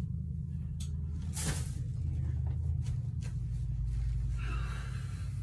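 Towels being handled and folded: soft fabric rustling near the end and a few light knocks as things are moved on the shelves, over a steady low hum.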